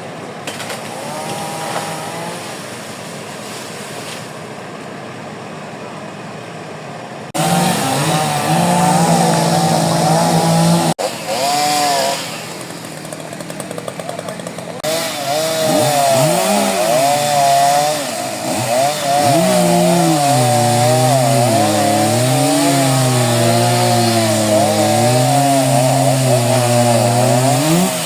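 Chainsaw running, its pitch repeatedly rising and falling as the throttle and cutting load change; it is quieter for the first few seconds, then loud with a couple of abrupt breaks.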